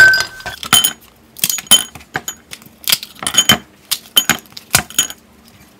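Ice cubes dropped into a glass, a string of about a dozen sharp clinks at irregular intervals, each with a brief ringing glass tone.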